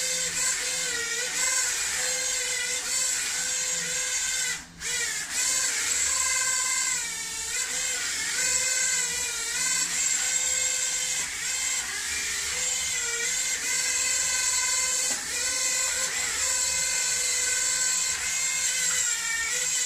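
Eachine E015 toy quadcopter's small motors and propellers whining while driving it as a boat across water. The pitch rises and falls as the throttle changes, and the whine dips briefly about four and a half seconds in.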